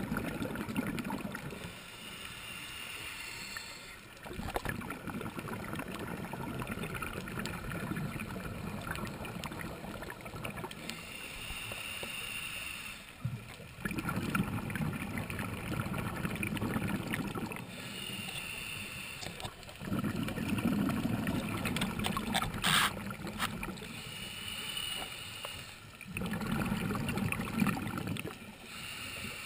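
Scuba regulator breathing heard underwater: a hissing inhale through the regulator alternating with a low rumble of exhaled bubbles, in a slow cycle of about four breaths. A single sharp click sounds about three-quarters of the way through.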